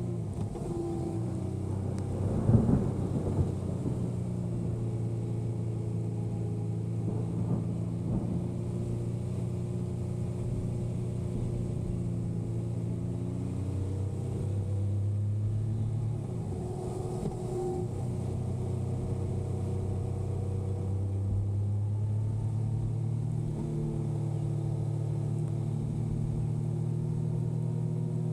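Yamaha motorcycle engine running steadily while riding, its note shifting up and down a few times with changes in speed. There is one short thump about two and a half seconds in.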